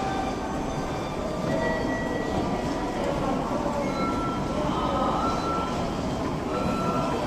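Railway station background noise: a steady rumble at an even level, with a few faint short tones over it.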